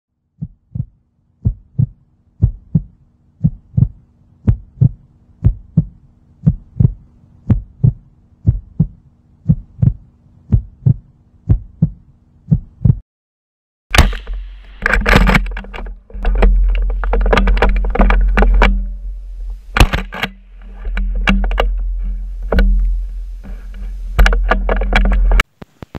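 Heartbeat sound effect: a double thump about once a second for the first thirteen seconds. About fourteen seconds in, a sudden loud bang is followed by heavy rumbling, scraping and clicking as the camera is jostled and handled, which stops abruptly near the end.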